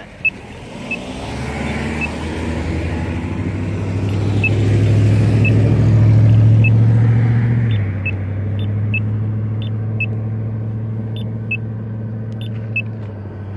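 Motor vehicle engine running close by with a steady low hum, growing louder toward the middle and easing off about eight seconds in. Over it, a Campbell Bulldog accessible pedestrian push button ticks its short high locator tone about once a second.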